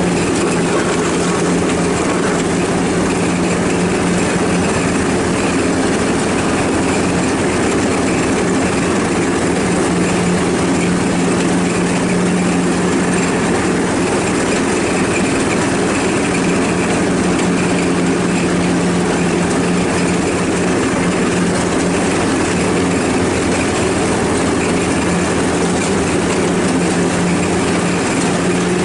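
Ride-on lawnmower engine running steadily at a constant speed as the mower is driven, a continuous low hum with no change in pace.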